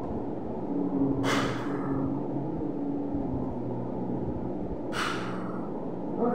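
Two short, sharp breaths through the nose, about four seconds apart, over a steady low background rumble.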